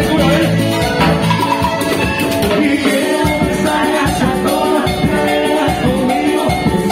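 Live cumbia ranchera band playing with a steady beat: a man singing into a microphone over electric guitar, keyboard and drums.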